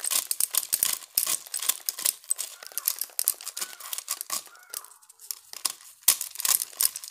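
Dried maize kernels crackling and rattling off the cob as it is twisted by hand through a homemade sheller, a plastic water pipe with screws set through it, with the kernels pattering into a woven basket. It is a dense, irregular crackle that eases briefly about five seconds in.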